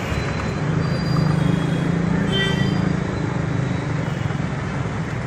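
Steady roadside traffic noise, with a motor vehicle's engine running close by and swelling for a few seconds in the middle before easing off.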